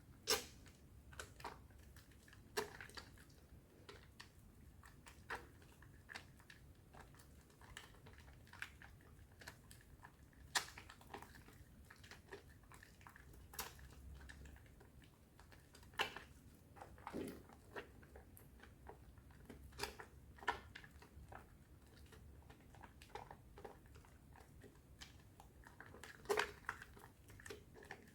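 A bar of soap worked by hand in thick foam: soft, irregular wet squishes and crackles of the lather, with a few sharper smacks scattered through.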